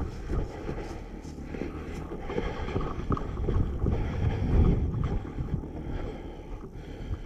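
Wind buffeting the microphone: an uneven low rumble.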